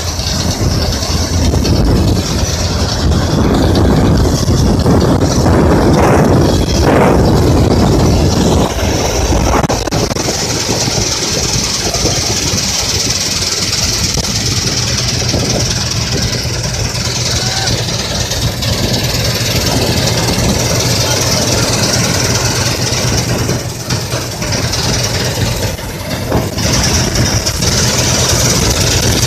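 Wheat combine harvester running steadily: a continuous engine drone with a steady high whine above it.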